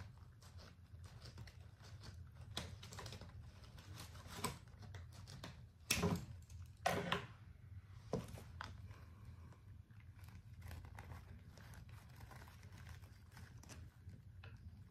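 Hands handling craft materials: scattered light clicks, rustling and crinkling, with two louder knocks about six and seven seconds in, over a low steady hum.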